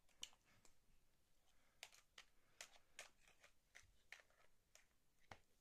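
Near silence, broken by a dozen or so faint, short clicks scattered irregularly through it.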